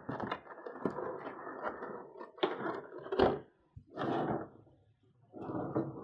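A clear plastic blister tray and a cardboard figure box being handled on a table: plastic sliding and rubbing against cardboard, a sharp knock a little after three seconds, and more short bursts of scraping.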